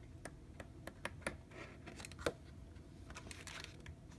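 Sheets of a scrapbook paper pad being turned one after another: faint paper rustles with scattered light ticks as the pages flip over.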